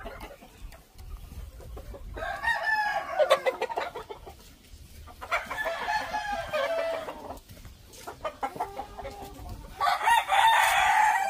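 Roosters crowing: three separate crows of about two seconds each, about two seconds in, around the middle, and again near the end.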